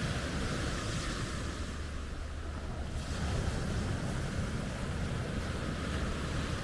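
Small sea waves breaking and washing up a sand-and-boulder shore: a steady rushing surf with a low rumble underneath.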